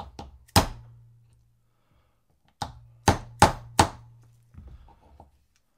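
Hammer striking a 3/32 pin punch to drive the extractor roll pin down out of a Stoeger M3000 shotgun bolt held in a bench block. One sharp tap comes, then a quick run of four taps about a third of a second apart a couple of seconds later, then a few lighter taps.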